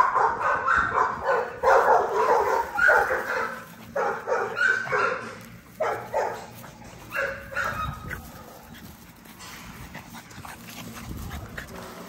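Young French bulldogs play-fighting, giving many short yips and barks in quick succession, thinning out and getting quieter after about seven seconds.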